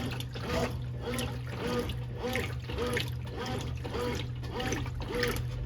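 Consul Maré Super 10 kg (CWL10) washing machine agitating: water sloshing in a rhythmic back-and-forth, about two strokes a second, over a steady motor hum.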